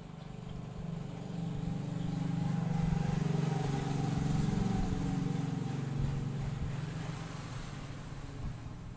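A motor vehicle engine hums, growing louder over a few seconds and then fading away, like a vehicle passing by.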